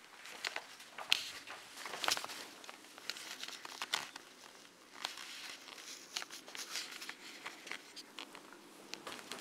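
Crinkly rustling and scattered sharp clicks from someone moving about and handling things close to the microphone.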